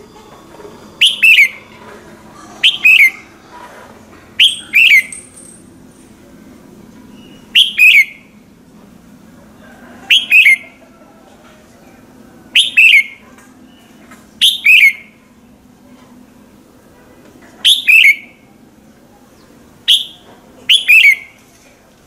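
Red-whiskered bulbul singing in short, loud, falling phrases, one every couple of seconds, about ten in all.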